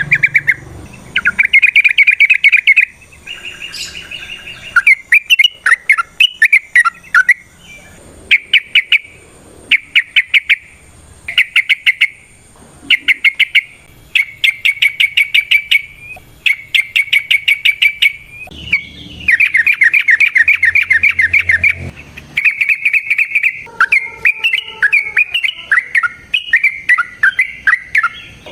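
Yellow-vented bulbul singing loudly in rapid, rattling bursts of notes. The phrases last about a second each with short pauses between them, and one longer run comes about two-thirds of the way through.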